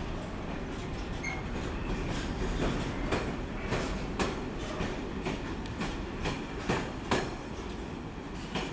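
Container freight train passing close by: a steady rumble of wagon wheels with irregular sharp clanks over the rail joints, several loud ones in the middle, easing slightly near the end as the last wagons go by.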